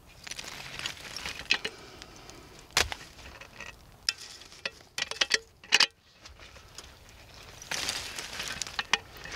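A shovel scooping up hot embers and dropping them: gritty scraping and crackling, with several sharp knocks of the shovel in the middle.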